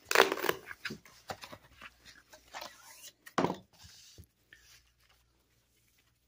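Handling noise from a padded mailer envelope being taken out of a cardboard box and laid down: short rustles and crackles, with louder knocks near the start and about three and a half seconds in.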